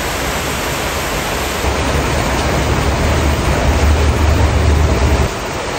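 Steady hiss of rain falling. From about two seconds in until near the end, a louder low rumble runs underneath it.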